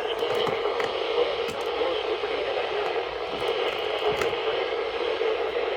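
Radio receiver static: a steady hiss with scattered crackles and clicks, no clear programme audio coming through.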